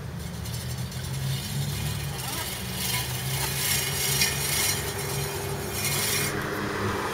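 Manual push reel mower rolling over grass, its spinning blade reel whirring and clattering as it cuts. The sound builds from about a second in and eases off near the end, over a low steady hum.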